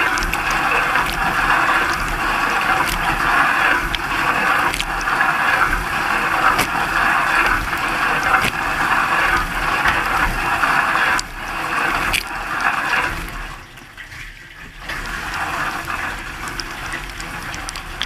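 Dishwasher spray arms jetting water over the dishes and racks, heard from inside the tub: a loud, steady hiss of spray and splashing with scattered sharp ticks. About three-quarters of the way through the spray drops away for a second or so, then resumes a little quieter.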